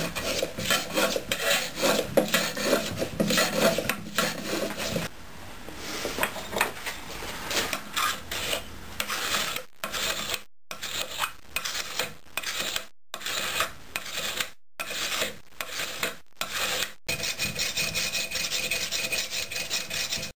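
A steel hand scraper shaving a split-bamboo strip held in a steel planing form, in repeated rasping strokes. The strokes come quickly and close together at first, then as separate strokes about a second apart with short pauses between them.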